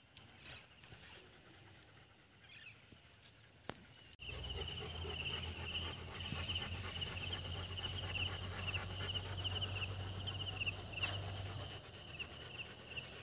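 Insects chirping outdoors in rapid, repeated pulsing trains; it is faint at first and gets louder about four seconds in, with a steady low hum underneath.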